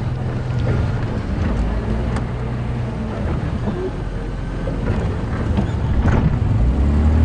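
Game-drive vehicle's engine running as it drives, a steady low rumble with wind noise on the microphone, growing louder near the end.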